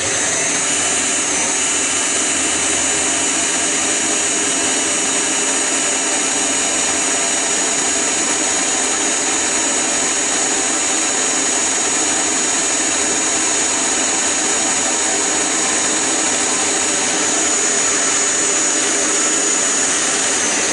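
Hand-held electric drill running at a steady speed, boring an eighth-inch hole through an aluminium bar with a twist bit, with a high steady whine over the motor. It stops abruptly near the end.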